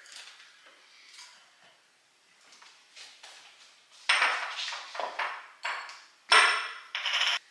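Glassware clinking and knocking on a kitchen countertop: a glass jar and a canister handled and set down. The sharp clinks start about four seconds in, the loudest near the end, after a few soft cabinet clicks.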